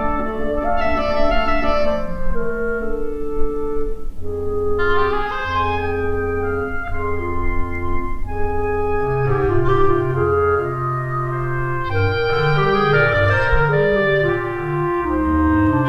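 Instrumental music played on sampled orchestral instruments: held chords and a slow melody over a bass line that begins to move more about halfway through.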